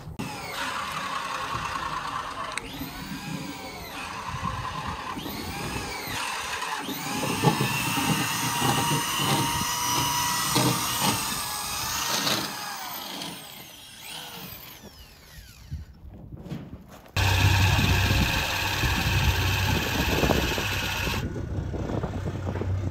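Corded electric drill boring holes into a large wooden timber beam. The motor runs in stretches, dies down briefly about two-thirds of the way through, then runs louder and steadier to the end.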